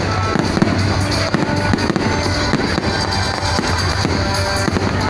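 Fireworks going off in a rapid string of bangs and crackles, over loud music playing at the same time.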